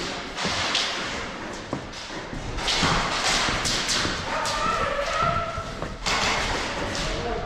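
Repeated thuds and knocks of players moving and shooting in a large indoor airsoft arena, with a shouted voice in the distance about halfway through.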